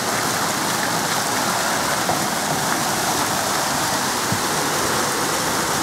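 Water pouring and splashing steadily from the water-park's sprays and slides.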